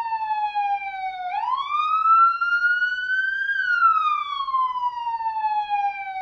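Police siren sounding its wail: one steady tone that slides low at first, then climbs over about two seconds and falls slowly back over about three, starting to rise again at the end.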